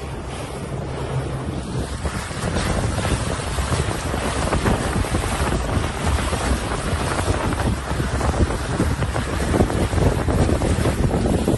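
Wind buffeting the microphone over water rushing and slapping against the hull of a small outboard-powered boat under way, with a low steady engine hum underneath.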